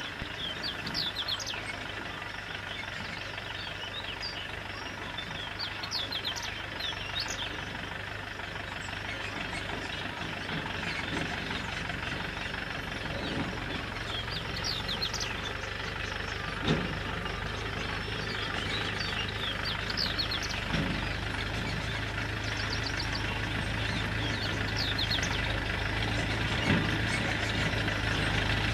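Farm tractor pulling a trolley along a dirt track, its engine running steadily and growing gradually louder as it approaches. Birds chirp throughout, and there is a single knock a little past halfway.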